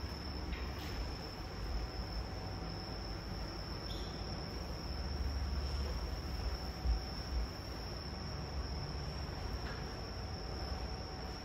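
Quiet room tone: a steady, thin high-pitched tone over a low rumble, with a few faint taps.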